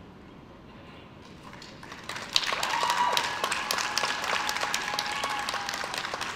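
Audience applause breaking out about two seconds in and carrying on as dense clapping.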